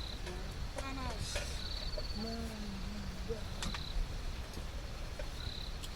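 An insect trilling in short pulsed bursts, repeating about every two seconds, over faint background chatter and a few light clicks.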